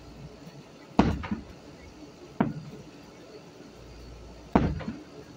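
Aerial firework shells bursting: three sharp booms, about a second in, near the middle and near the end, each fading off over a fraction of a second.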